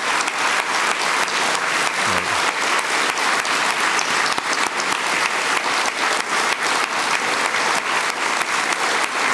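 Audience applauding steadily, a dense patter of many people's hand claps.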